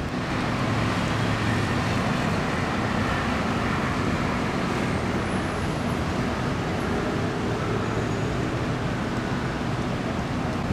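Steady city traffic noise: an even rush with a low hum underneath.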